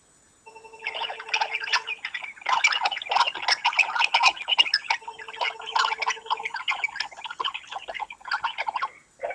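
iPhone 3G call audio: the ringback tone beeps twice, about one and a half seconds each, with a rapid, irregular crackling and chattering noise over it. This is the noise fault that shows up on most calls, heard on both ends of the line, cause unknown.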